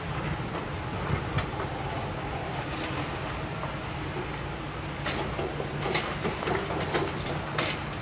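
Hidromek backhoe loader's diesel engine running steadily while it works through demolition debris. Several sharp metallic clanks and crashes of scrap and rubble come mostly in the second half.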